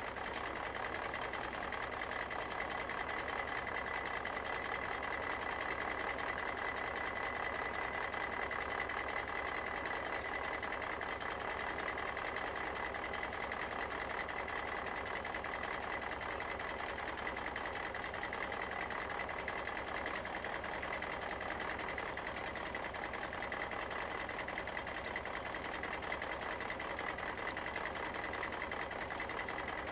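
Steady engine-like running of heavy machinery with a constant high whine, unchanging throughout: a construction-vehicle engine sound.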